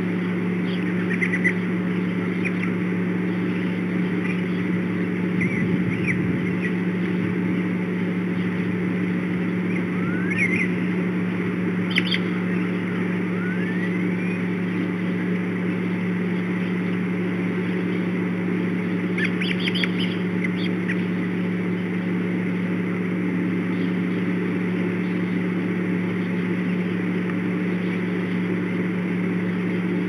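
Small birds chirping a few times, with two short rising whistles, over a steady low hum.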